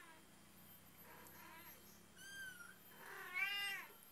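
A young kitten mewing three times in high, thin calls that rise and fall in pitch. The first is faint, and the last, about three seconds in, is the loudest.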